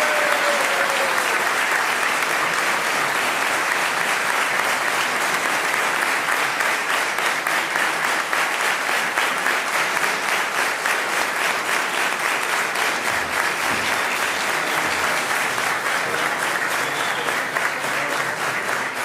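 Audience applause, a dense steady clapping that holds for the whole stretch and eases off near the end.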